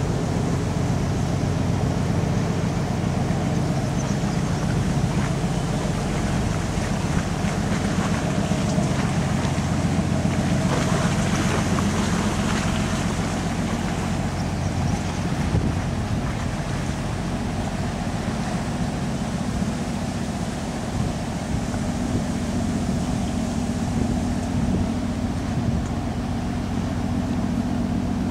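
Diesel engine of a passing general cargo ship running steadily, a low hum with several steady tones, mixed with wind on the microphone and the wash of water. The hiss swells briefly near the middle.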